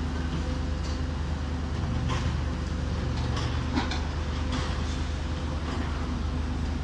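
Steady low drone of heavy construction machinery's diesel engine running, with scattered light metallic clinks and knocks over it.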